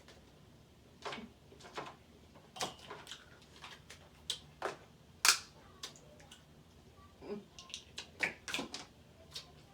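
Close-up eating sounds of a seafood boil: irregular crisp snaps and clicks from crab-leg shells being cracked, mixed with wet mouth smacks, with the sharpest snap about five seconds in.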